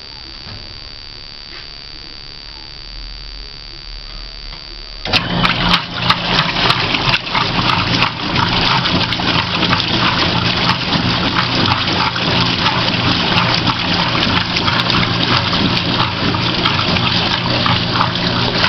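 Electrolux/Prosdócimo washing machine starting its cycle about five seconds in: a sudden loud rush of water sloshing over a steady motor hum, which carries on. Before that there is only a faint steady hum.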